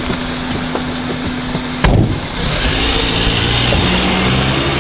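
Car engine idling, then a sharp thump about two seconds in, likely a car door shutting, after which the engine revs up as the car pulls away.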